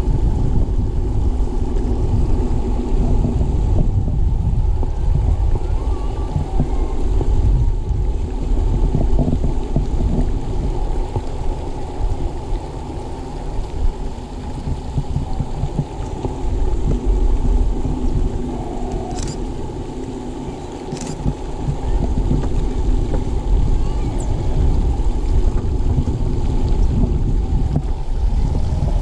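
Wind buffeting an action camera's microphone outdoors, a steady low rumble.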